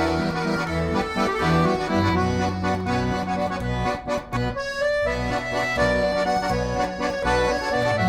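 Music: a melody over a stepping bass line, with a short break in the bass about four and a half seconds in.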